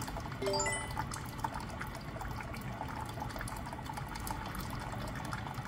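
Thin stream of water running from an LG water purifier's spout into a plastic jug: the final 85 °C, 120 ml dispense of the purifier's hot-water reset. A short chime of quick beeps rising in pitch sounds about half a second in.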